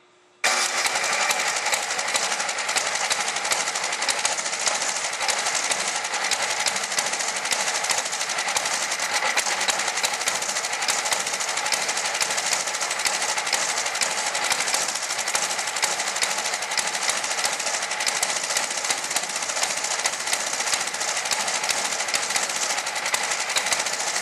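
Tecumseh small engine of a Toro snowblower running steadily, a fast, dense mechanical clatter that starts abruptly about half a second in.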